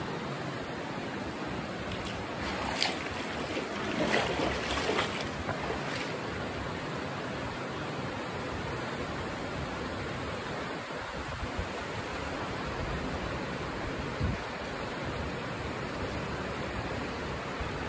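Steady rush of a river flowing through a rocky gorge, a constant even wash of water noise. A few brief louder noises break in about three to five seconds in.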